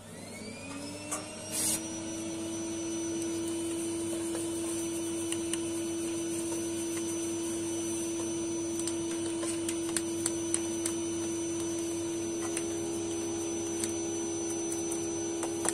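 Vacuum cleaner switched on, its motor spinning up with a rising whine over the first second or so, then running steadily, with a few small clicks as the hose nozzle works over the dusty chassis.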